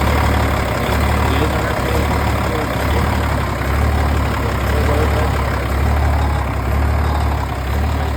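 Idling of the M35A2 deuce and a half's turbocharged inline-six multifuel diesel engine. The truck is factory straight-piped with no muffler, so the idle is loud, deep and steady.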